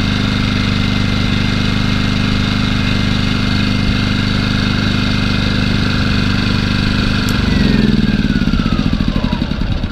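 Firman 2000i inverter generator running steadily. About seven and a half seconds in, its note changes into a pulsing run-down with a whine falling in pitch, as the engine is shut off and winds down.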